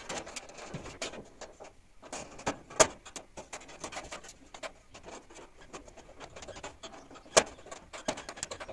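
Steel cover plate being fitted back over a steel almirah's door-lock mechanism: a screwdriver scraping and clicking against the sheet metal in an irregular run of small knocks. Two sharper metal clicks stand out, about three seconds in and about seven seconds in.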